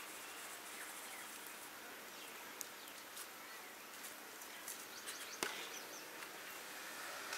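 Faint steady hiss with a few scattered light clicks, the loudest about five seconds in.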